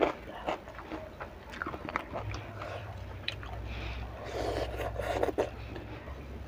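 Close-up eating sounds of a person chewing fried tempe in chili sauce with rice: wet mouth smacks, bites and small clicks at irregular moments. A steady low hum comes in about two seconds in.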